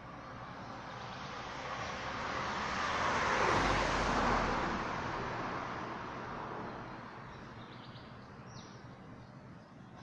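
A passing vehicle: a rushing engine-and-tyre noise that swells to a peak about four seconds in, with a low rumble at its loudest, then fades away.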